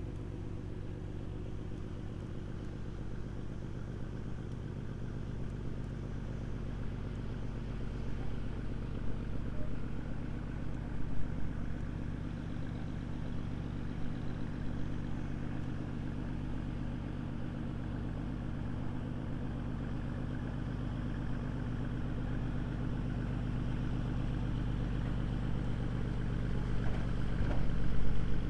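A boat's engine running with a steady low throb, getting gradually louder toward the end.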